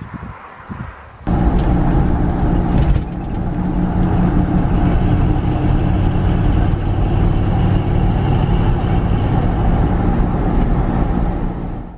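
Wind buffeting the microphone, then, about a second in, a sudden cut to an old Chevrolet Blazer driving at steady speed on the highway: a steady engine drone with road and tyre noise, heard from inside the cab.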